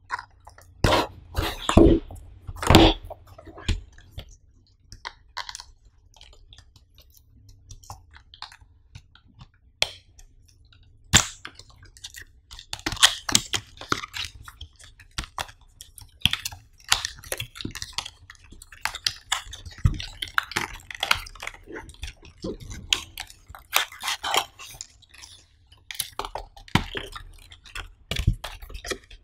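Close-miked handling of a cardboard product box: irregular scraping, rubbing and tapping of cardboard and paper as the box is worked open and its inner sleeve slid out, with sharp clicks and louder scrapes, a cluster of them in the first few seconds and a single sharp one about eleven seconds in.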